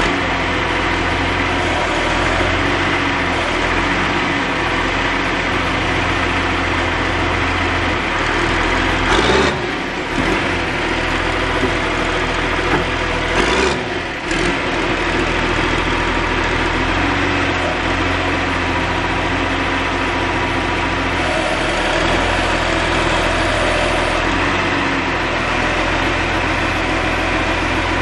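John Deere backhoe's diesel engine running steadily, with two brief louder surges about nine and fourteen seconds in.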